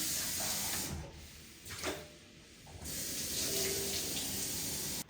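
Water tap running into a sink in two spells: about a second at first, then again from nearly three seconds in until it is shut off sharply just before the end. A brief knock falls in the gap between them.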